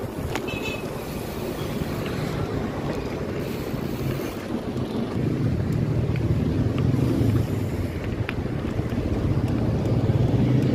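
Wind rushing over the microphone of a camera carried on a moving bicycle, with steady road rumble. From about halfway a steady low engine hum of a motor vehicle comes in and grows louder.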